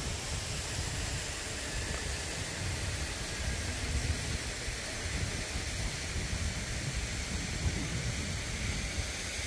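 Steady outdoor ambience: wind buffeting the microphone, a low irregular rumble under an even hiss.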